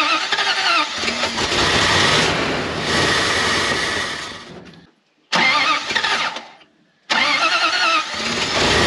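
Dodge W300 dump truck's carburetted engine cranking on the starter, being primed with a splash of gas poured into the carburetor. There are three stretches of cranking, cut off abruptly about five and about seven seconds in. It fails to keep running, which the owner takes to mean fuel is not getting to the carburetor.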